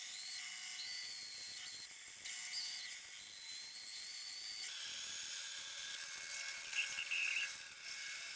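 Benchtop band saw running and cutting a workpiece fed by hand: a steady, high-pitched whine that shifts to a higher pitch about halfway through.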